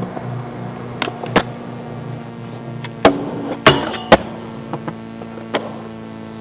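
Skateboard wheels rolling on concrete, with sharp board clacks from pops and landings about a second in, a cluster around three to four seconds in that includes a brief scrape, and a couple of lighter knocks later on.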